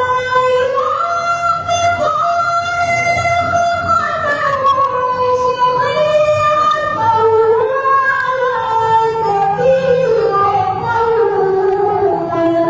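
A woman singing a slow melody in long held notes that slide and waver from one pitch to the next, with soft music underneath.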